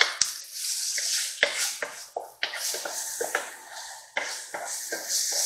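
Wooden spoon stirring onion, bell pepper and garlic in a nonstick frying pan: irregular scrapes and taps against the pan, over a soft sizzle of the vegetables frying.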